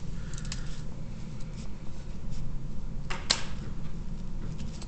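Faint ticks and scratches of a marker pen writing on paper, with one sharper tap a little after three seconds in, over a steady low hum.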